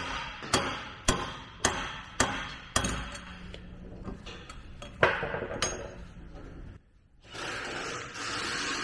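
Hammer tapping on the end of a Honda S2000 differential's pinion shaft, driving the pinion out of the housing. Sharp ringing metal taps come about two a second for the first few seconds, then two more after a pause.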